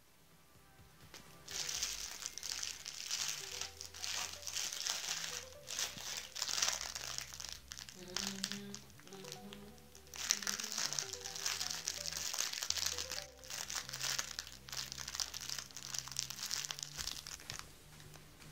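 Crinkly fabric baby toy crackling as an infant grabs and chews it, in bouts with a lull around the middle. Faint music plays underneath.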